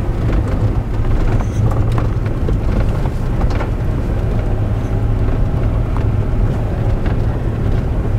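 Four-wheel-drive vehicle heard from inside the cabin while driving on a dirt road: a steady low engine and tyre rumble with a few faint ticks.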